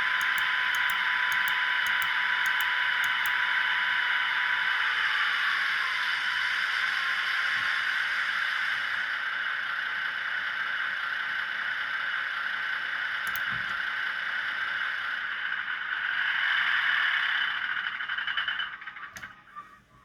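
Köf II diesel shunting locomotive engine sound running steadily, thin and without bass, swelling briefly and then cutting off near the end, followed by a few faint clicks.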